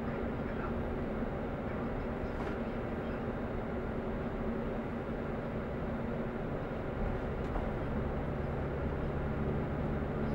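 Steady engine hum and road noise from inside a moving vehicle's cab. The low engine note grows a little stronger about seven seconds in.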